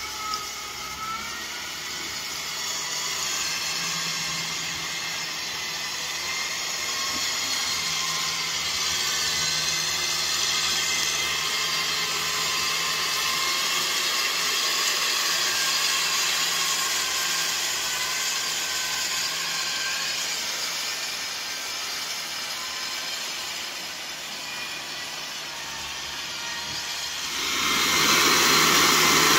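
Kubota M6040SU tractor's diesel engine running steadily under load while its rear rotary tiller churns through wet mud. It grows sharply louder near the end.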